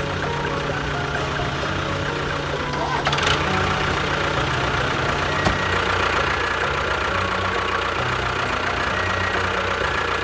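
A motor running steadily, with voices in the background and a couple of faint clicks.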